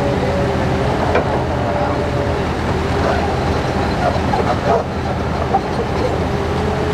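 The diesel engine of a piece of heavy earthmoving machinery running steadily, with a few short knocks.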